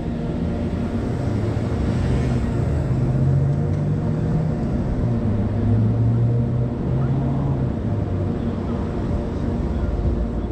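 Steady low rumble of city street traffic, cars driving along the boulevard.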